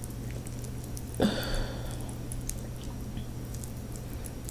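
Close-miked eating sounds of king crab: small wet clicks and squishes of crab meat being picked from the shell and chewed, with one louder wet smack a little over a second in. A steady electrical hum runs underneath.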